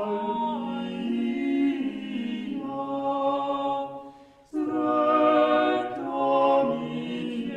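Choir singing a cappella in long, held notes that move slowly from one chord to the next. The singing breaks off briefly a little past the middle, then comes back in.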